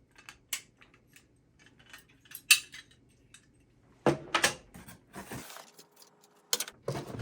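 Fire alarm devices being handled and set down out of a box: scattered light clicks and clinks, one sharper click about two and a half seconds in, then louder knocks in the second half with a short rustle between them.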